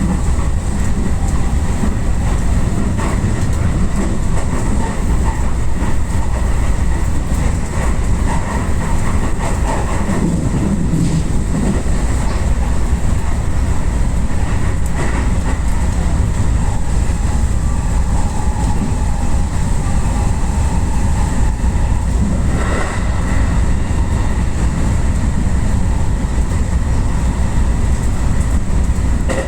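Yamatoji Line rapid electric train running along the track, heard from inside the front car: a steady rumble of wheels on the rails with some clickety-clack.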